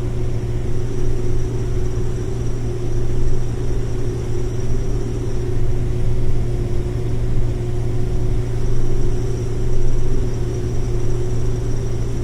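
Combine harvester running steadily while shelling corn: an even engine drone with a constant low hum and no change in speed.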